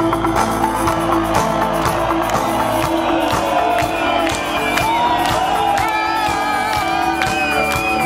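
Live rock band of electric guitars, bass and drums playing an instrumental passage with a steady drum beat, and sustained high notes coming in about halfway. A festival crowd cheers and whoops under the music.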